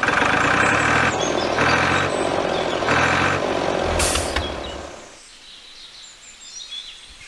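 Heavy vehicle engine sound rising in three surges, with a short air-release hiss like an air brake about four seconds in. It then drops away, leaving faint bird chirps.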